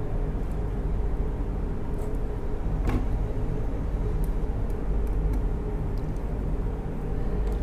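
Steady low rumble with a faint hum, and a few faint clicks, the clearest about three seconds in, as a wire is fitted and screwed into a push-button terminal.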